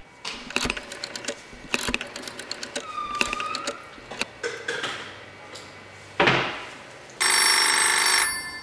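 Smartphone sounds: a string of short key-tap clicks as a text message is typed, a swoosh about six seconds in, then a loud electronic alert tone lasting about a second near the end as the message arrives on the other phone.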